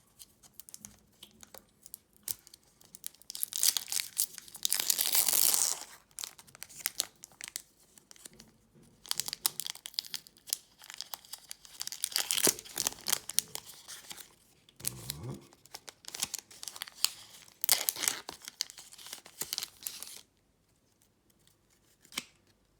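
Foil booster-pack wrapper of Pokémon trading cards being torn open and crinkled by hand, in repeated rustling bursts, the loudest tearing about four to six seconds in.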